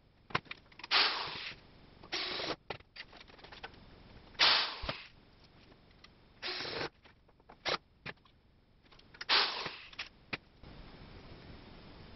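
DeWalt cordless drill/driver running in about five short bursts, driving small flathead screws through metal angle brackets into a wooden table frame, with sharp clicks of bracket and screw handling between the runs.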